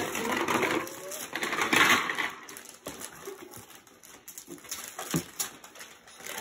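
Gift wrapping paper being torn and crumpled off a boxed present: a run of loud tearing in the first two seconds, then quieter scattered crackles and rustles.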